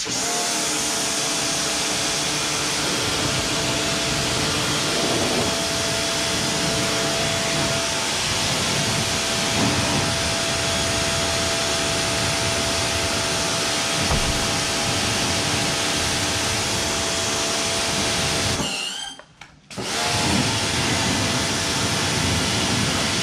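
Pressure washer running, its motor humming steadily while the wand sprays a jet of water against the front bumper and underside of a car. It cuts out for about a second near the end, then starts again.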